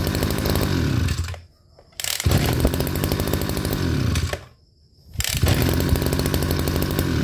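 Kioritz GE3400 brush cutter's 34cc two-stroke engine being pull-started again and again: it runs, winds down with falling pitch and stops about a second in, catches again at once on a short pull, stops again after a couple of seconds and restarts near the end. Each start comes on the first short pull, before the cord is even pulled straight: a warm engine that starts easily.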